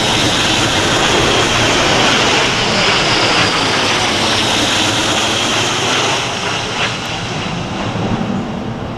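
Military aircraft flying low overhead in a flypast: a loud, steady rushing that eases off gradually over the last few seconds.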